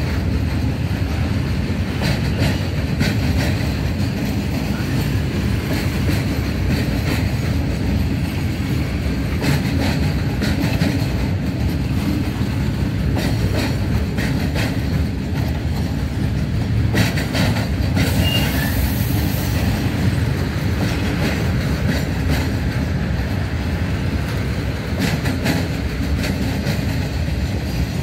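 Container flat wagons of a long electric-hauled freight train rolling past: a steady low rumble with the clack of wheels over rail joints, and a brief high-pitched squeal about eighteen seconds in.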